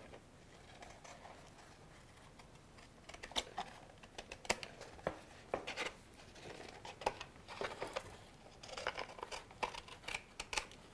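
Scissors snipping through folded paper in short, irregular cuts, starting about three seconds in.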